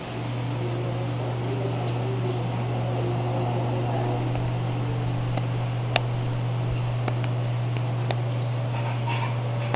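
Aquarium pump humming steadily at a low pitch, with a few faint clicks near the middle.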